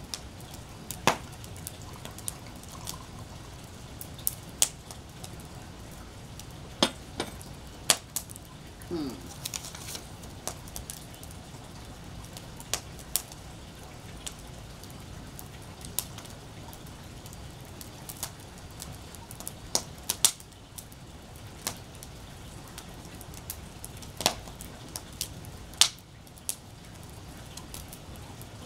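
Wood fire crackling in a fire pit: irregular sharp pops, a few every couple of seconds, over a steady low rush.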